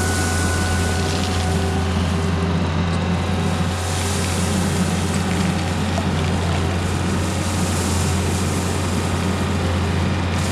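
Diesel engine of a Takeuchi earthmoving machine running steadily with a constant low drone, its noise spread wide above.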